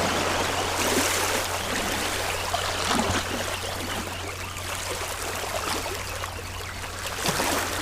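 Seawater washing and trickling over shoreline rocks, a steady rush that swells slightly about a second in and again near the end.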